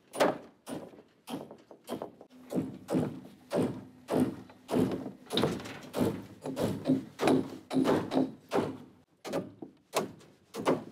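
Hammer blows driving nails into wooden roof framing, a steady run of sharp strikes about two a second. A steady low hum runs under the blows from about two seconds in until about nine seconds.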